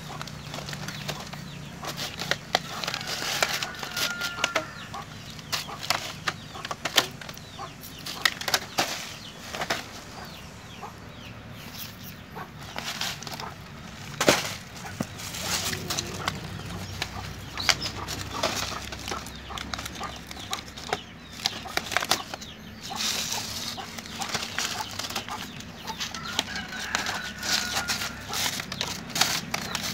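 Chickens clucking, with scattered sharp clicks and rustles throughout.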